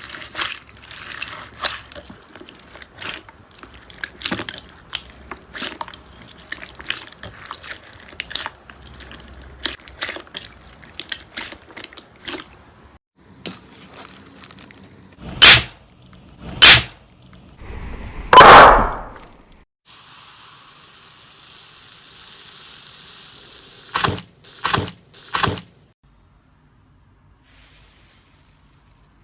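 Slime being squeezed and worked by hand: a long run of small crackles and clicks, then several loud sticky pops and a longer squelch. There is a short steady hiss, three more quick pops, then quiet.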